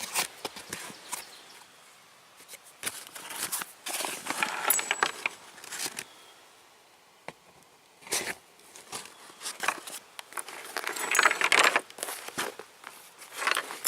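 WW2 US M1945 canvas field pack being handled: rustling canvas and webbing straps with jingling and clicking of the metal strap hardware, in several bursts with a short quiet pause in the middle.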